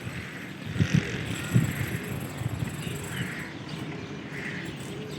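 Pigeons cooing over a steady background, with two low thumps about a second in.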